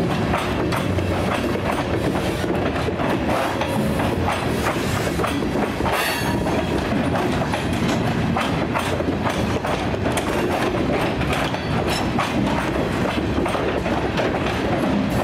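Covered hopper cars of a freight train rolling past at close range, wheels clacking and knocking over the rail joints under a steady rumble, with a brief metallic screech about six seconds in. The rough clatter is the sound of poorly maintained branch-line track that sets the cars swaying.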